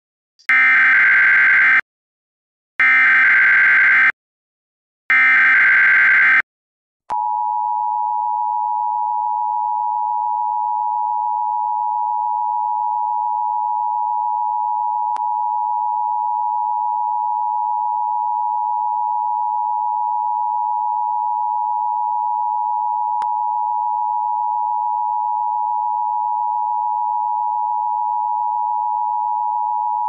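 Emergency Alert System tones: three short, identical bursts of digital header data tones, then, about seven seconds in, the long steady two-tone attention signal.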